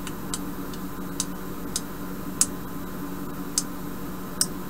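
Retractable micro-USB cable reel clicking through its notches as the cable is drawn out: about seven sharp, irregularly spaced clicks.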